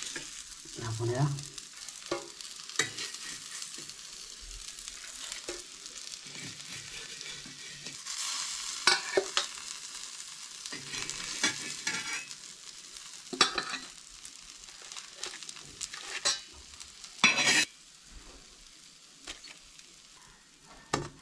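Mackerel pieces sizzling in oil on a hot iron griddle over a wood fire. A metal spatula scrapes and clinks against the griddle now and then as the fried pieces are lifted off, the loudest scrape coming late on.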